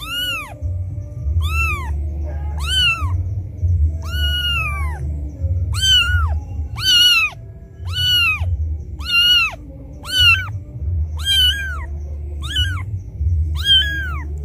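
Newborn kitten crying for its mother: a string of high, loud meows about once a second, each rising and falling in pitch, with a low rumble underneath.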